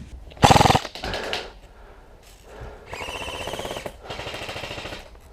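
Airsoft guns firing full-auto bursts, a rapid, even rattle of shots. A loud short burst comes about half a second in and another just after one second, then two longer, quieter bursts follow around three and four seconds in.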